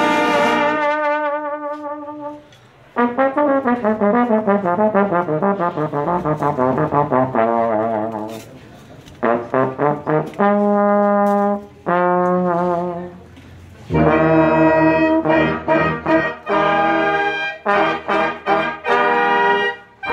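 A section of trombones in a Mexican banda playing together: a held chord, then a string of fast descending runs, a few short phrases with brief pauses between them, and from about two-thirds in, quick detached repeated notes.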